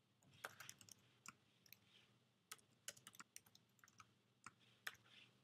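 Faint typing on a computer keyboard: irregular single keystroke clicks, with a few quick runs of keys.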